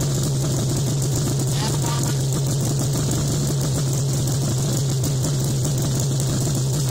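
A 2019 Arctic Cat Alpha One snowmobile's 800 two-stroke twin idling steadily at about 2,000 rpm, settling slightly from 2,100. It has an aftermarket exhaust can, and it sounds gnarly.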